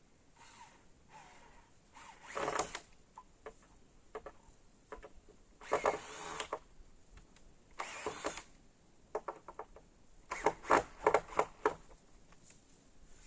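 Hand work sounds from greenhouse repair: three short rustling scrapes, then a quick run of sharp clicks and knocks near the end.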